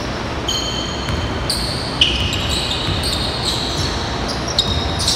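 Basketball players' sneakers squeaking on a hardwood gym floor, several short high-pitched squeals, with a basketball bouncing and a sharp knock about two seconds in.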